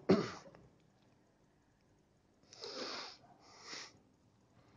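Cat hissing in short, breathy bursts: a loud one at the start, then two more, the longer about two and a half seconds in and a shorter one a second later.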